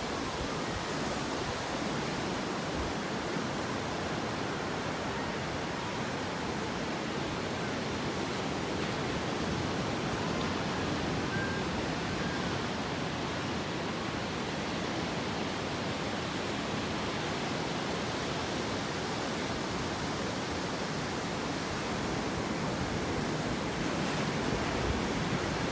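Steady roar of heavy surf breaking along the beach, driven by a typhoon swell.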